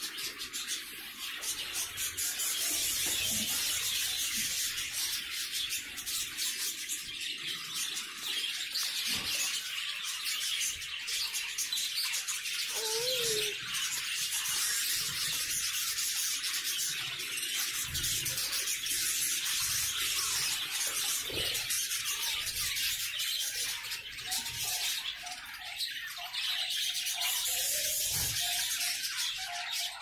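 A flock of birds chirping constantly, many high calls overlapping into a dense chatter.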